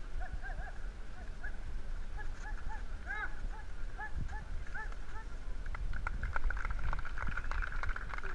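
A run of short, high calls that rise and fall, several a second, then from about six seconds in a crowd clapping and shouting.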